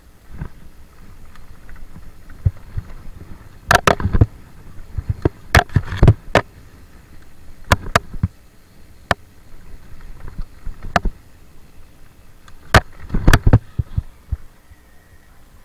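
Mountain bike rolling down a dirt forest singletrack: a low rumble of tyres and wind, broken by sharp clacks and rattles as the bike hits bumps, loudest in clusters about four, six and thirteen seconds in.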